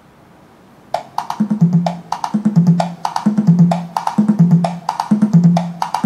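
Recorded music played through a Luxman A3500 valve power amplifier and JVC Victor SP-EXA10 wood-cone speakers. After about a second of hiss, a percussion intro starts: sharp clicks in a steady rhythm over a low repeating note.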